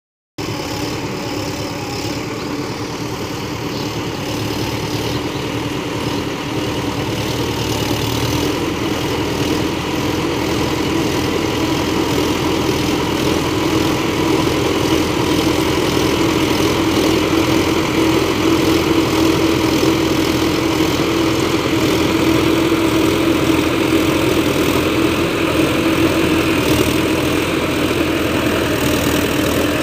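Sonalika DI 60 tractor's diesel engine running steadily while pulling a pipeline trencher through field soil, growing gradually louder as the tractor comes closer.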